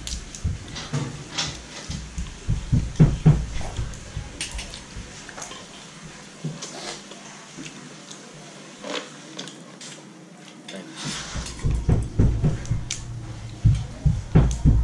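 Cooked Dungeness crab shell being cracked and picked apart by hand, with chewing: irregular crackles and clicks, and dull low thumps at the start and again near the end.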